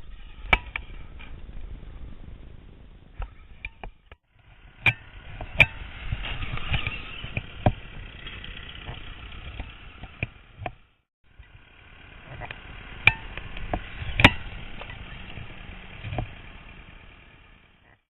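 Traxxas E-Maxx electric RC monster truck running over rough ground: drivetrain and tyre noise with several sharp knocks from landings and crashes, in three stretches that break off briefly about four and eleven seconds in.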